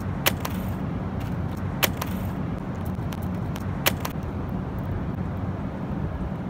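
Steady low rumble of city traffic, with three sharp clicks, about a third of a second, two seconds and four seconds in.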